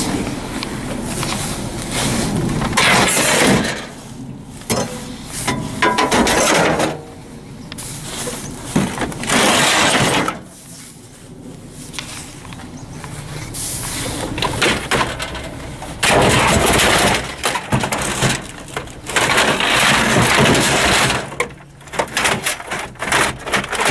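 Discarded electronics being rummaged through in a dumpster: plastic and metal casings of printers, computer cases and monitors clattering and scraping against each other in repeated loud bursts, with a quieter stretch about halfway through.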